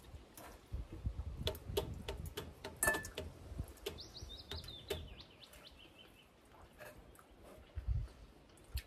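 Forks clicking and scraping against bowls in scattered, uneven strikes. About four seconds in, a small songbird sings one short song, a quick run of chirps that falls in pitch.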